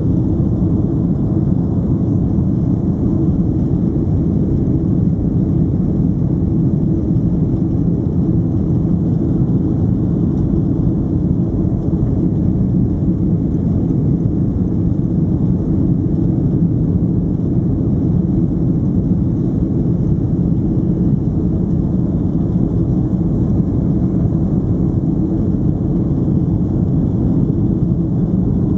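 Steady cabin noise of a Boeing 767-300ER climbing after takeoff: an even, low rumble of jet engines and rushing air, heard from a window seat inside the cabin.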